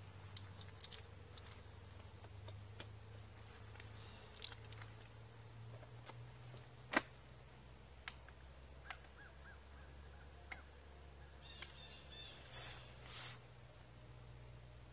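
Mostly quiet, with scattered mechanical clicks as a break-action double-barrel shotgun is handled and loaded with birdshot; one sharp click about seven seconds in is the loudest. There are a few faint bird calls and a couple of brief rustles near the end.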